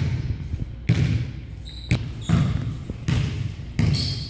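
Basketball being dribbled on a hardwood gym floor: a series of bounces roughly a second apart, each thud echoing in the large hall.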